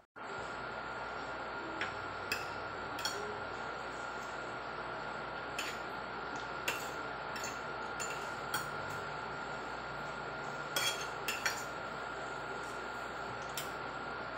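Metal spoon and fork clinking and scraping against a ceramic plate: about a dozen scattered light clinks over a steady background hiss with a faint high hum.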